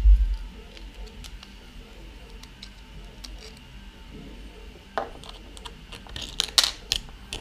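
Light handling clicks of a plastic part and small metal parts, then near the end a short cluster of sharp metallic clicks and scraping as an Allen key is fitted into a socket-head screw in a 3D-printed plastic clamp.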